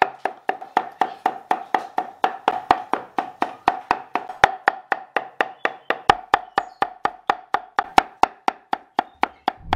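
Large knife chopping rapidly and steadily on a thick round wooden chopping board, mincing spices into a fine paste: about four to five even knocks a second, each with a short woody ring.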